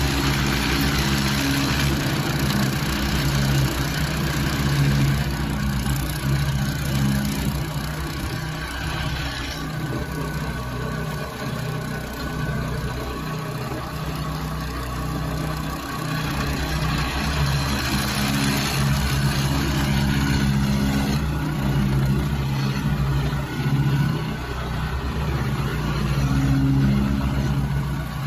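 A heavy machine's engine runs steadily throughout, its speed shifting up and down a few times, with mechanical noise over it.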